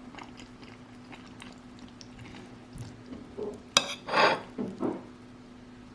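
A spoon clicks against a plate and scrapes up a mouthful of keema curry, a short clatter about four seconds in, over a low steady hum.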